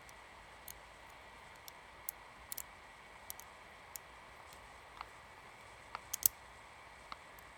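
Buttons of a 10-digit push-button combination lock being pressed one by one while feeling for resistance: about a dozen sparse, irregular clicks, with the loudest few close together about six seconds in.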